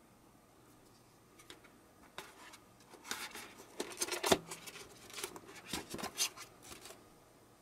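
Hand-handling noises of an unboxing: irregular rustles, scrapes and sharp clicks of the prop and its box packaging being moved. They start about a second and a half in, are busiest in the middle with the loudest click about four seconds in, and die away near the end.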